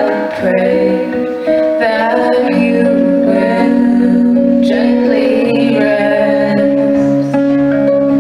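Slow folk song played live: an acoustic guitar accompanying two women singing.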